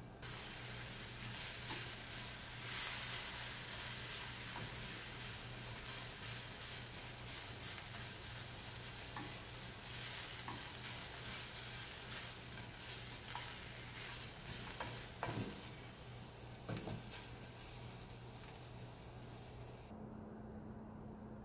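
Sliced red onions sizzling in a ceramic-coated frying pan over a gas flame, stirred with a plastic spatula. A few clicks and scrapes of the spatula on the pan come about two-thirds of the way in, and the sizzle cuts off suddenly near the end.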